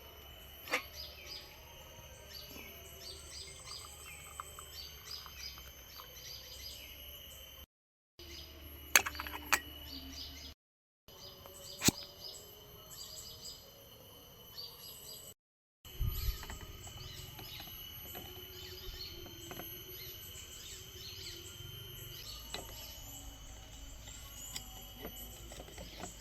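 Birds chirping in quick repeated calls over a steady high-pitched whine of outdoor ambience, with a few sharp clicks or knocks. The sound drops out briefly several times.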